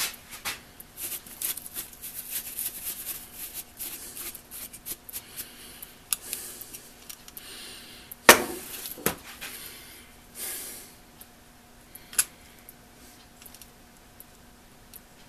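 Hands pulling old burned wiring and small metal terminal parts out of an electric motor's terminal box: scattered clicks, rustles and light metallic clinks, with one louder knock about eight seconds in.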